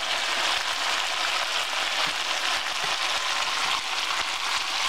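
Beef, bell pepper and onion stir-fry sizzling steadily in a stainless steel skillet.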